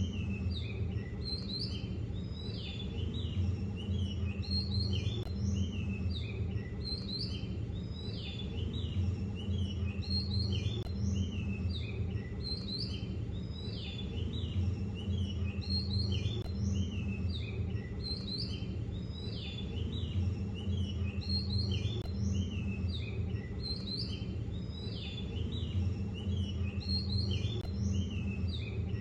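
Many small birds chirping and twittering over a steady low rumble, the same stretch of chirps recurring every five or six seconds.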